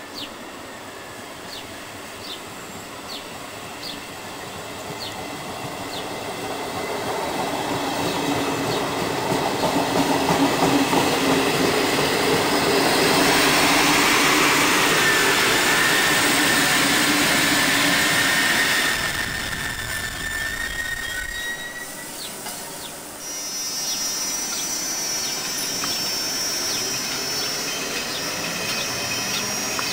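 Italian regional electric train passing close at about 80 km/h through a speed restriction: wheel and track noise builds over several seconds to a loud peak, with a drawn-out wheel squeal near the middle, then stops abruptly. After that, more quietly, a second electric train with a steady high whine.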